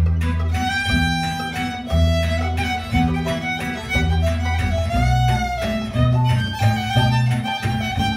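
Gypsy jazz string band playing live: a violin carries the melody over strummed acoustic guitar and mandolin, with plucked upright double bass underneath.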